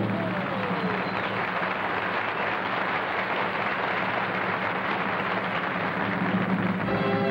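Audience applauding steadily over a low, constant hum.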